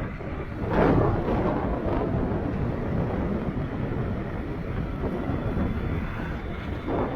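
Strong wind buffeting the microphone of an e-bike riding at speed in gusty wind, a low steady rumble with a louder gust about a second in and another near the end.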